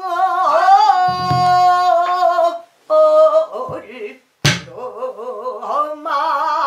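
A female pansori singer sings long, quavering held notes, accompanied by a buk barrel drum: a low thud of the drumhead about a second in and a sharp crack of the drumstick on the drum's wooden rim about four and a half seconds in.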